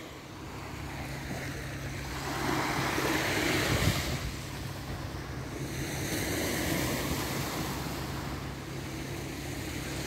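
Small waves washing onto a sandy beach, the surf swelling and easing in slow surges, with wind on the microphone.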